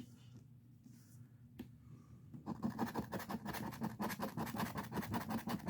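Scratching the latex coating off a lottery scratch-off ticket, starting about halfway in as a quick run of short, rapid strokes, after a near-quiet start with one light click.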